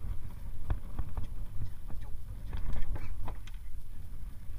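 Scattered knocks and taps on a wooden boat deck as a landed giant trevally is handled and unhooked, over a constant low rumble.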